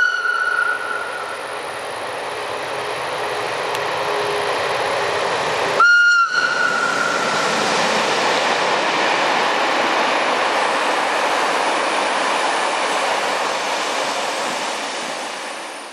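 Ae 6/8 electric locomotive passing with a train of historic coaches, sounding a short single-note horn blast about six seconds in that echoes briefly, after the tail of an earlier blast fades in the first second. The rumble and clatter of the train swells after the blast and then fades away near the end.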